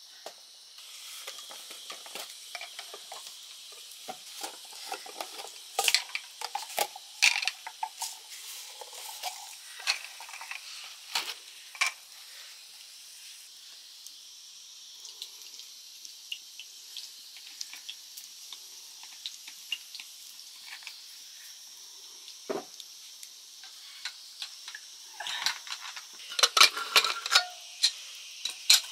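Food frying in a pan with a steady sizzle, while a utensil stirs it and knocks against the pan. The knocks come thickest about six to eight seconds in and again near the end.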